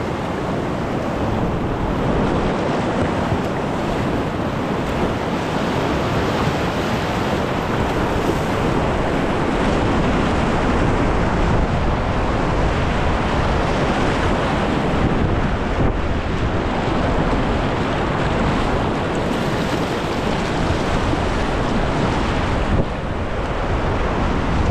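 Whitewater rapids rushing steadily around a kayak, with wind noise on the microphone.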